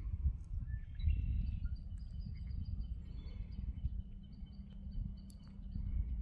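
Footsteps on an outdoor walk over a low rumble, with thin, steady high-pitched tones from wildlife starting about a second in and breaking off and resuming.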